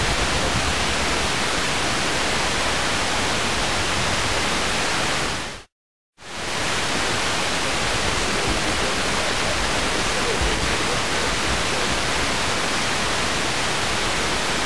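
Steady FM radio hiss from a Tecsun PL-606 portable receiver tuned to 89.7 MHz with no usable signal, as the aircraft-scattered broadcast has faded out. The hiss drops to silence for about half a second roughly six seconds in, then returns.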